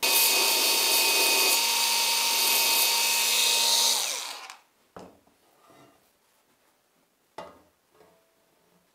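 An electric power tool running at a steady speed for about four seconds, then switched off and winding down, followed by a couple of faint knocks.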